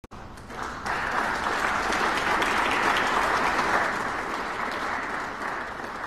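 Audience applauding in a snooker arena. The clapping swells about a second in and slowly fades toward the end.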